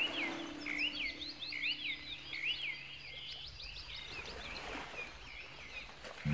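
Birds chirping: many quick, repeated sweeping calls, thinning out after about four seconds. A held note of background music fades out under them in the first second and a half.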